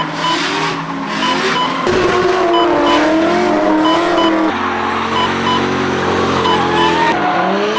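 C5 Corvette's V8 engine revving up and down under load while drifting, with tyre squeal; the engine pitch changes abruptly at cuts, holding steady for a few seconds in the middle.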